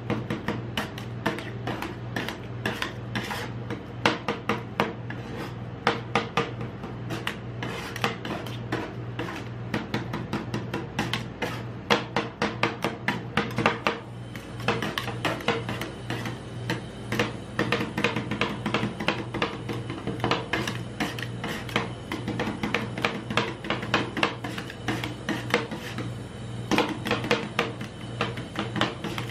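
Two metal spatulas chopping and scraping a setting ice cream mixture on the steel cold plate of a rolled ice cream machine: rapid clicking taps mixed with scraping, with a couple of brief pauses, over a steady low hum.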